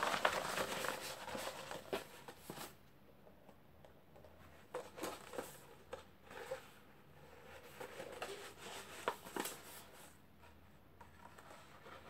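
A large sheet of paper being handled, rolled up and unrolled by hand, making rustles and soft taps. The handling is busiest in the first couple of seconds, then turns into faint, scattered rustles and clicks.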